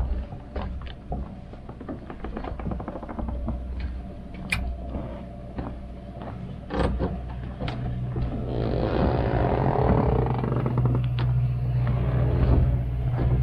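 An engine running, its steady low hum coming up and growing louder about eight seconds in, after a run of light clicks and knocks.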